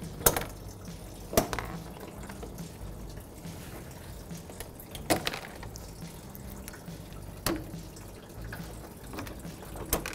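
Engine coolant draining from the radiator into a catch pan: a steady trickle of liquid. A few sharp knocks sound over it, the loudest two near the start.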